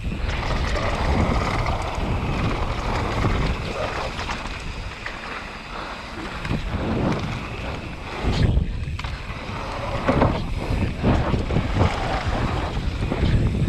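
Wind buffeting the camera microphone and mountain bike tyres rolling over a loose gravel trail at downhill racing speed, with several sharp knocks from the bike over bumps in the second half.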